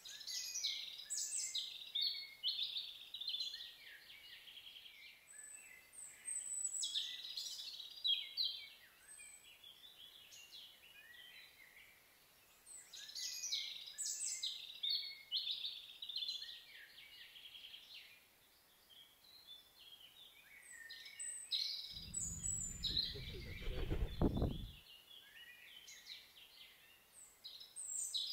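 Small songbirds singing in repeated short, high, warbling phrases every few seconds. A low rumble lasting about three seconds comes in near the end.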